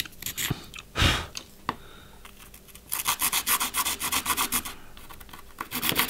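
Flat hand file scraping back and forth over the edge of a small black frame part in quick strokes, filing it down so it slides over press nuts. The filing breaks off with a knock about a second in, resumes about three seconds in, and pauses briefly before picking up again near the end.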